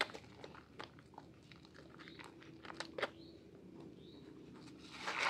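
Wet hands squeezing and kneading a bar of soap in thick lather: squishing and crackling foam with many small pops, swelling into a louder squelch near the end.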